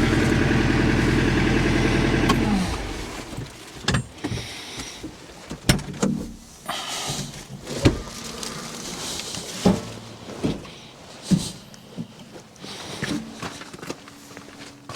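An engine running steadily that is shut off about two seconds in, its pitch sagging as it stops; after that, scattered sharp knocks and clanks.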